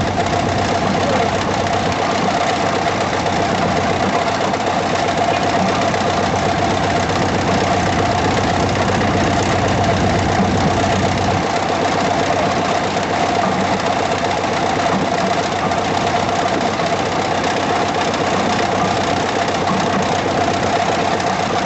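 Engine of heavy construction machinery running steadily under load while pulling a steel pile casing out of the bore, with a constant whine over it. Its deep low rumble drops away about halfway through.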